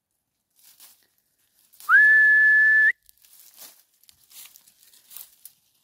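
A person whistles one loud, clear note to call the flock about two seconds in. The note rises quickly, holds steady for about a second and flicks upward as it ends. Faint crackles of dry leaves and twigs come before and after it.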